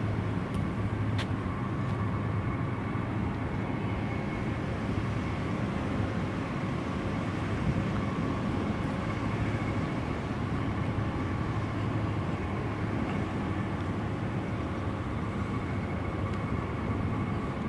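Steady outdoor low rumble with a constant machine-like hum running through it, like a distant engine or motor, unchanging throughout.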